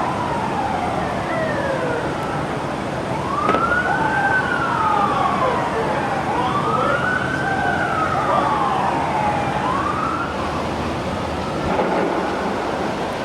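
Emergency vehicle sirens wailing in slow rising and falling sweeps, more than one at a time, over steady street noise.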